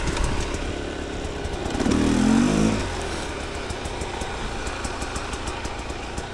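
2022 Rieju MR 300 Pro's two-stroke engine running as the dirt bike rides a trail. It revs up and back down about two seconds in, then runs at lower revs.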